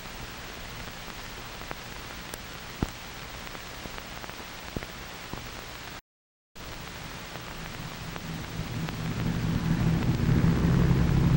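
Steady old-film soundtrack hiss with a few crackle clicks, cut by a brief dropout about six seconds in. A low drone from a B-29 bomber's four piston engines then comes up and grows steadily louder over the last few seconds as the plane approaches.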